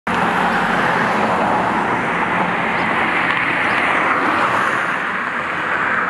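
Steady road traffic noise: a car driving past on the road.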